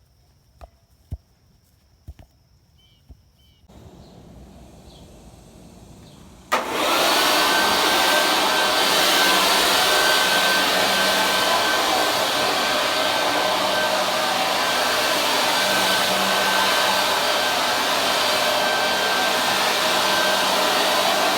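A few light clicks, then a powerful blower-type motor switches on abruptly about six and a half seconds in and runs steadily: a loud rush of air with a steady high whine.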